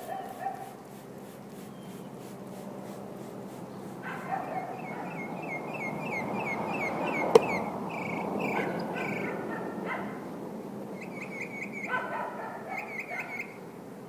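Steady hum of a large honey bee swarm flying around the hive. High, whining cries with quick falling chirps come and go over it, and a single sharp knock sounds about seven seconds in.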